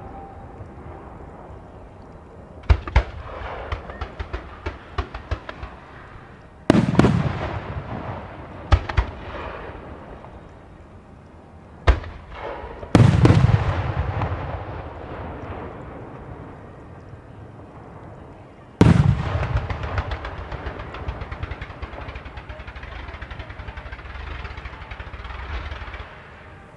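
Aerial fireworks shells bursting, each loud boom trailing off in a long rumble. The biggest booms come about 7, 13 and 19 seconds in, and a run of rapid crackling follows an earlier burst about 3 seconds in.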